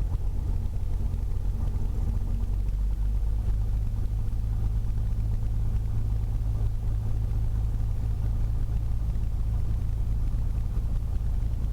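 Beechcraft A36 Bonanza's piston engine running steadily at low power on the ramp, a constant low drone heard from inside the cabin.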